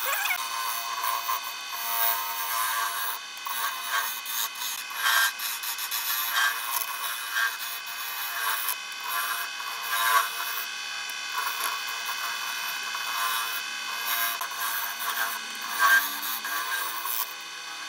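Wood lathe running with a steady motor whine while a hand-held chisel cuts a spinning wooden spindle, giving an uneven scraping hiss of shavings. There are louder scrapes about ten and sixteen seconds in.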